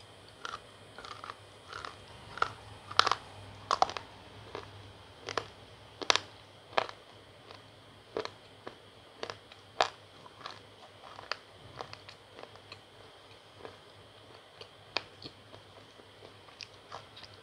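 Biting and chewing powder-coated slate pencils: a string of sharp, gritty crunches, loudest and most frequent in the first ten seconds, then sparser.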